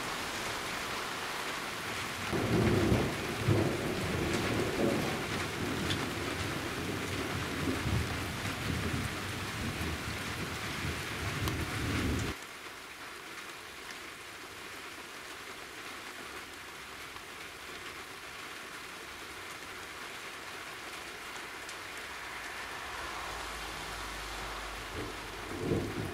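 Steady rain falling, with thunder rumbling heavily for about ten seconds, breaking off abruptly. After that the rain goes on more quietly, with a short rumble near the end.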